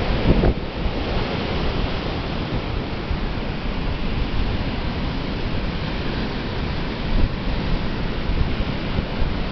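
Atlantic Ocean surf breaking and washing up the beach in a steady rush of noise, with a brief louder surge just after the start.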